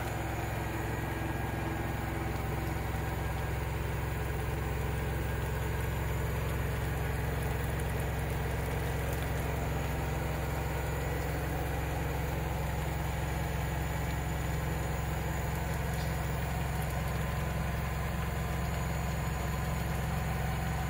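Steady low motor hum of a running household appliance, unchanging throughout.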